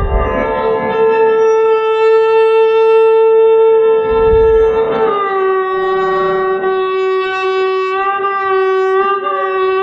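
Solo violin playing a slow Hindustani alaap in Raag Kafi: one long bowed note held for about five seconds, then a slide down to another long held note, with a further downward slide at the end. Two brief low thuds sound at the start and about four seconds in.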